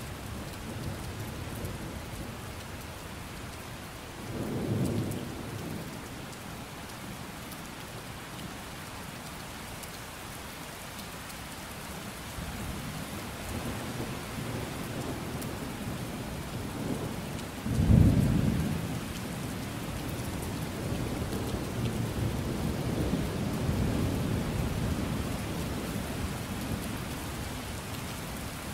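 Steady rain falling, with thunder: a low rumble about four seconds in, a loud thunderclap about eighteen seconds in that rolls off into rumbling, and more rumbling a few seconds after it.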